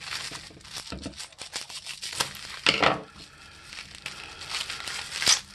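Clear plastic bag crinkling and rustling as it is handled, with scattered sharp clicks and a few louder crackles.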